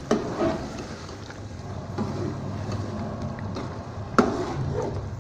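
Metal spoon stirring chicken masala and yogurt in a steel pot, scraping through the thick gravy with sharp clinks against the pot, one just after the start and a louder one about four seconds in. A low steady hum runs underneath.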